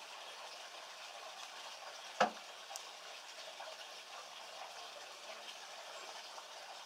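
Steady, faint hiss of outdoor background noise, with one sharp knock about two seconds in and a fainter tick just after.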